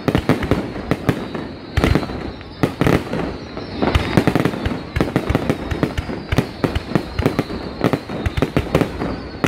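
Aerial fireworks display: shells bursting in rapid, irregular succession, several sharp reports a second, over a continuous rumble and crackle from the barrage.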